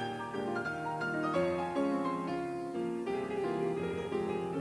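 Background instrumental music: a melody of sustained notes.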